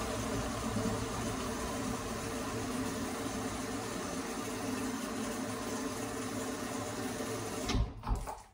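Steady rushing hum of a running kitchen appliance, cut off abruptly near the end.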